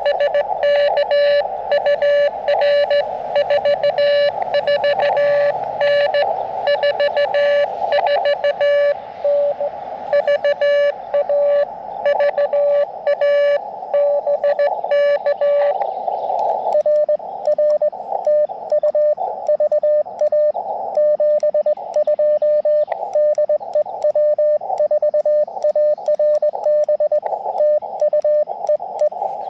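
Morse code (CW) from an Elecraft KX2 transceiver on 30 meters: a single-pitch beep keyed on and off in dots and dashes over band noise.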